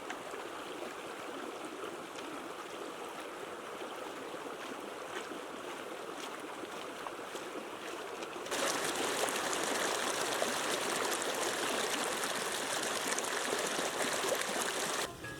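Steady rush of flowing water, like a stream. About eight and a half seconds in, it cuts abruptly to a louder, brighter rush, which drops away shortly before the end.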